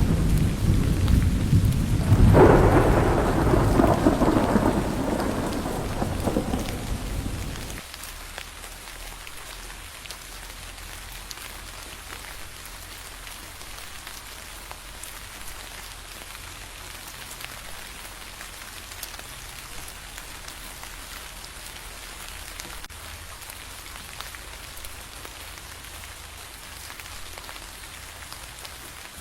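Thunder rumbling through a rainstorm, with a louder clap about two seconds in. The rumble fades and then cuts off abruptly about eight seconds in, leaving steady rain falling.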